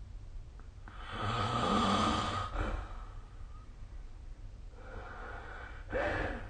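A sleeping person snoring: one long, loud snore about a second in, then a softer breath and a short, louder one near the end.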